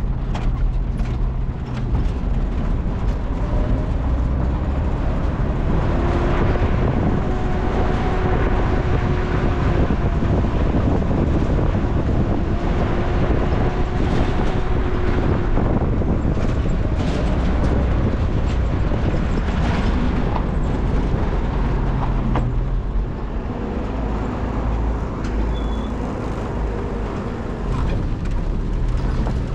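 A vehicle's engine running steadily while it travels, under a heavy low rumble, with a faint pitched hum that drifts slightly in pitch.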